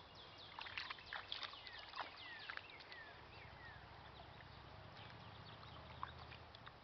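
A small dog's paws stepping and splashing in shallow creek water at the bank: a run of light, irregular splashes and clicks, mostly in the first half.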